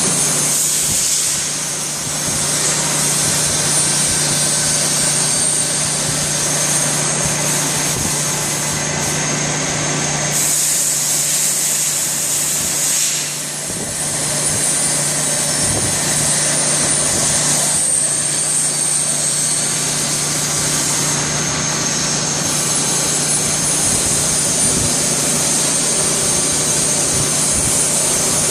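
CNC lathe running, a steady machine noise with a low hum and a thin high whine, dipping briefly twice.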